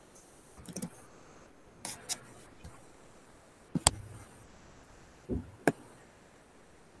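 Half a dozen scattered clicks and light knocks, irregularly spaced, the sharpest a little past the middle, over faint room tone picked up by a video-call microphone.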